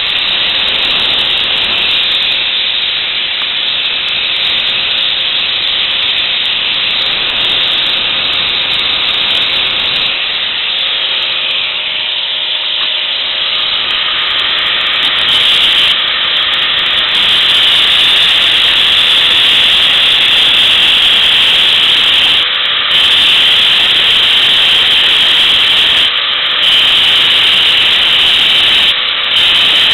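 Electric grinder grinding steel under load, taking off an old broken weld around a chair pedestal's center shaft to prepare it for re-welding. A steady, loud hiss of grinding over a faint motor whine, growing louder about halfway through, with a few brief drops in load near the end.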